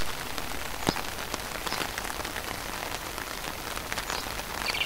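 Steady rain falling onto floodwater: an even hiss with many scattered small drop ticks.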